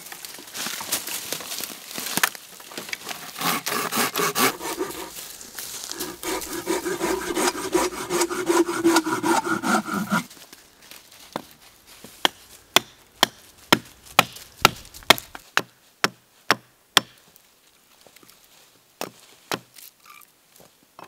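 Hand saw cutting through wood in quick back-and-forth strokes for about ten seconds. It stops, and about a dozen sharp knocks on wood follow, roughly two a second, with a couple more near the end.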